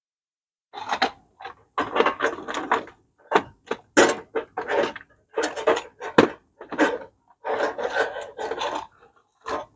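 Irregular clatter and knocking of tools and metal parts being handled and shuffled, as in rummaging through a drawer or toolbox for a tool.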